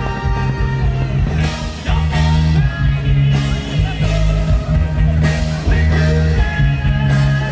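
Loud music: a song with singing over held bass notes and instruments.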